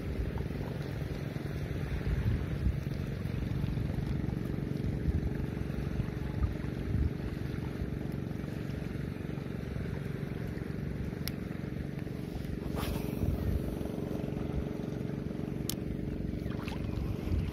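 Wind buffeting the microphone by the sea, over a steady motor hum, with a couple of sharp clicks later on.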